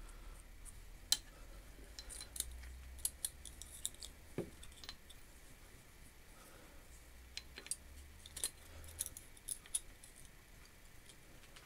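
Faint, scattered light metallic clicks and taps of small metal parts, a guillotine blade and its brass shims, being handled and fitted by hand.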